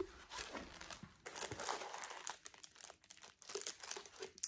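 Tissue paper crinkling and rustling as it is handled and folded back inside a gift box, in quick irregular crackles.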